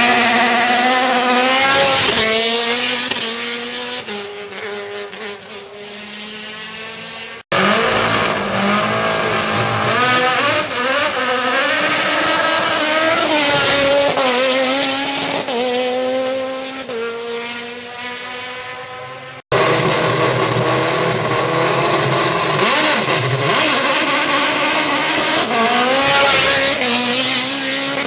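Single-seater formula race car engines accelerating hard at high revs, the pitch climbing and then dropping with each upshift. Three separate runs follow one another, each broken off abruptly, the first a launch from the start line.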